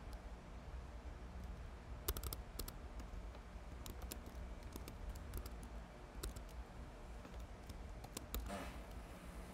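Typing on a computer keyboard: scattered, irregular keystroke clicks starting about two seconds in, with a brief rustle near the end, over a faint steady low hum.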